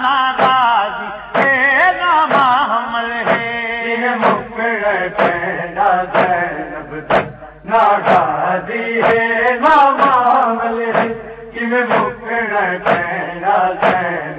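Voices chanting a Shia noha lament, with rhythmic matam: hands striking the chest about every three-quarters of a second to keep the beat.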